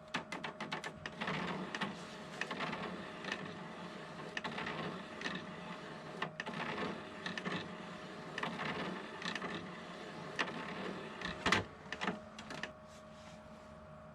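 Irregular clicking, rattling and scraping of the plastic casing and small parts of a Sony ZS-3 CD radio-cassette player being handled during disassembly, with a sharper click near the end over a faint steady hum.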